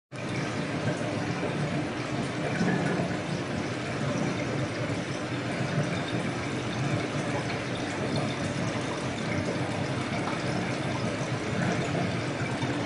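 Steady running and bubbling water in a 600-litre aquarium, the water circulating through the tank without a break.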